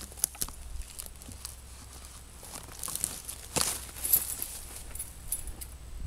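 An axe wrenched out of a wooden stump near the start, then footsteps crunching and rustling through dry forest litter, with scattered sharp cracks, the loudest a little past the middle.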